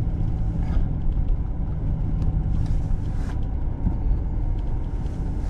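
Car driving on a snow-covered street, heard inside the cabin: a steady low rumble of engine and tyre noise.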